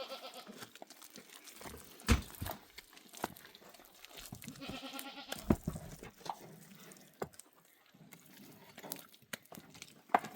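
Goat bleating twice, once at the start and again about five seconds in, with scattered sharp knocks in between.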